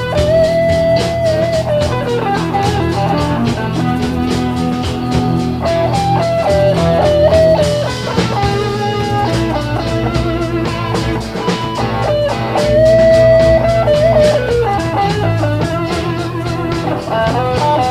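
Background music: an instrumental blues-rock break, with electric guitar playing bending lead notes over a steady beat.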